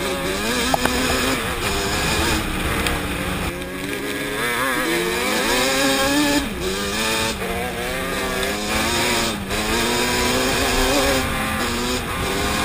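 Yamaha Banshee 350's twin-cylinder two-stroke engine running hard under the rider, its pitch climbing and falling with the throttle and dropping off briefly several times as the throttle is backed off or it shifts, with wind noise on the microphone.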